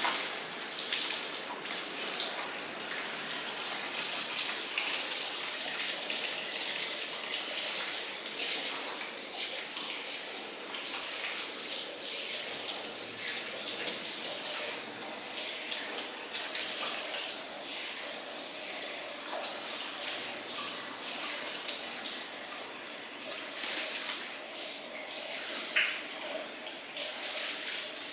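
Handheld shower sprayer running steadily, its water spraying onto a person's hair and splashing into a salon shampoo basin.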